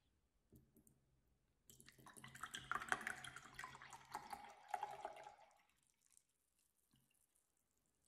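Juice poured from a carton into a glass tumbler: a splashing pour that starts about two seconds in and lasts about four seconds.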